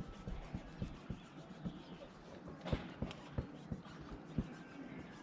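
Soft, irregular low thumps and taps, about a dozen, the loudest a little past the middle, over a faint background hiss.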